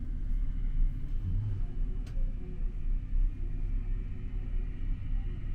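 Steady low rumble inside a gondola cabin travelling along its cable, with a faint steady hum over it and a single light click about two seconds in.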